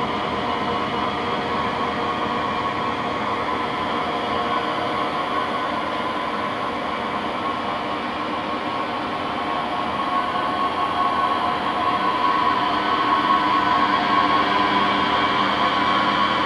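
Bridgeport EZ Path SD lathe running: a steady machine sound with several even tones over a hiss, getting louder about eleven seconds in.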